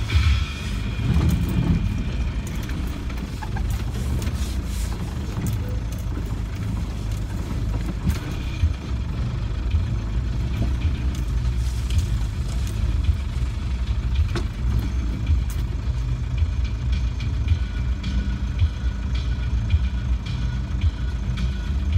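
Diesel Land Rover engine running at low speed, heard from inside the cab as a steady low drone, with occasional knocks and clicks as the vehicle crawls over a rough track.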